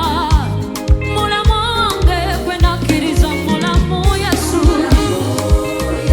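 Gospel worship band playing: a kick drum on every beat about every half second under bass and keyboard chords, with a lead melody winding through quick runs with vibrato.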